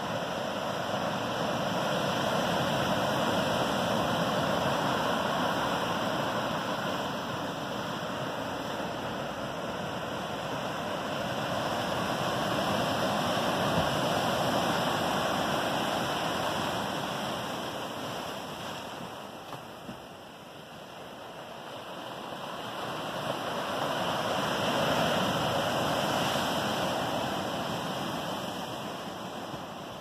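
Ocean surf breaking on a rocky shore: a continuous wash of churning white water that swells and fades slowly with the incoming waves, easing off about two-thirds of the way through before building again.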